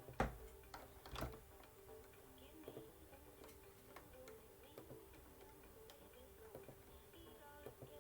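Quiet clicking: two sharper clicks about a second apart near the start, then scattered faint ticks, over faint background music.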